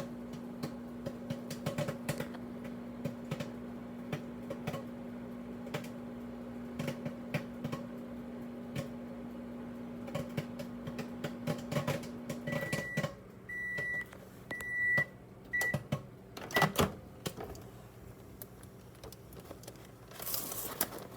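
Microwave oven running with a steady hum while popcorn pops in scattered sharp cracks. About halfway through, the hum stops and the microwave gives a series of short high beeps. A loud clack and a rustle follow near the end.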